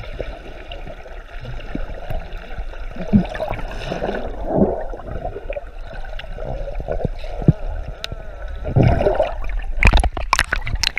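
Muffled water gurgling and sloshing around a GoPro held underwater in its housing, with scattered sharp clicks. About ten seconds in, the camera breaks the surface and there are several loud splashes.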